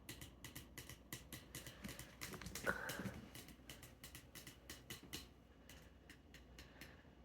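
Light drumming taps, about four a second and uneven, thinning out near the end, with a brief louder sound about three seconds in.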